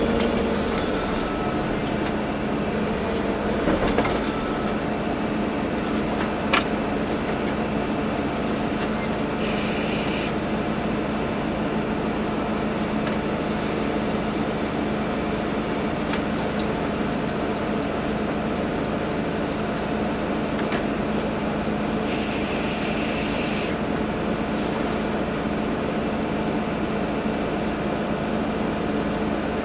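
Volvo EC240B excavator's diesel engine running at a steady, even pitch, with one sharp click about six seconds in and two brief higher-pitched hisses, near 10 s and 22 s.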